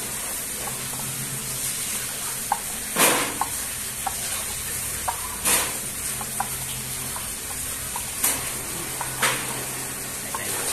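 A hand squeezing and tossing sliced green fruit with seasoning salt in a ceramic bowl: wet, crunchy rustling with small clicks. There are louder brief scrunches about three, five and a half, eight and nine seconds in.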